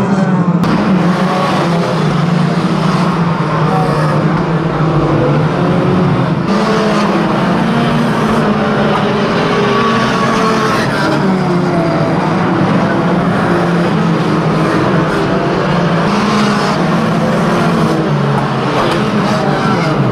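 Engines of several banger racing cars running together at varying revs, a steady mixed din from the pack.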